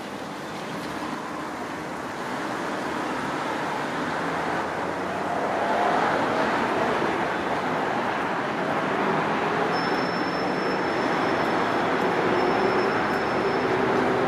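Steady rumble of road traffic, growing louder as vehicles pass, with a faint thin high whine in the second half.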